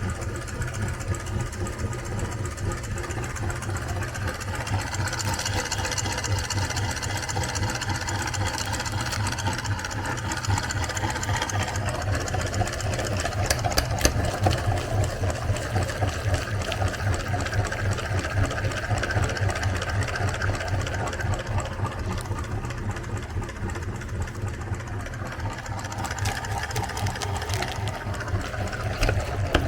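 Electric meat grinder running steadily with a fast, even motor chatter while it grinds ice cream.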